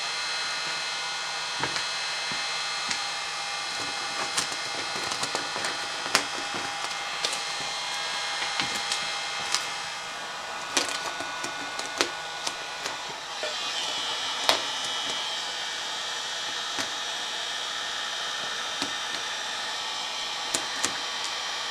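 Wagner heat gun blowing steadily, its note shifting about thirteen seconds in, while the vinyl wrap film crackles and clicks sharply as it is pressed and stretched over the fender by hand.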